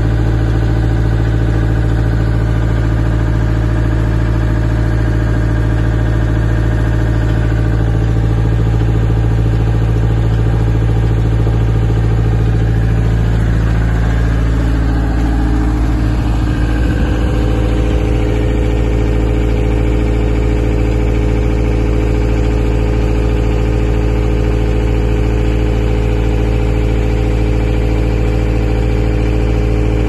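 Bitelli BB632 asphalt paver's diesel engine running steadily. About halfway through, its note changes and settles into a different steady pitch.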